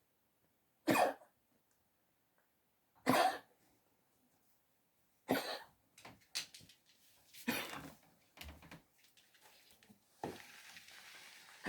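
Poodle coughing, four strong single coughs about two seconds apart followed by fainter, shorter ones: the cough of congestive heart failure.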